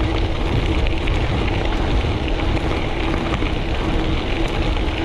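Wind buffeting the microphone and tyres rolling over a gravel track as a gravel bike rides along at speed.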